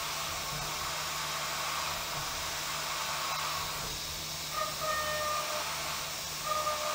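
CNC mill roughing a hardened 20CV steel knife-blade bevel with a small end mill under air blast: a steady hiss with a low spindle hum. From about halfway through, short high tones come and go as the cutter engages the hard steel.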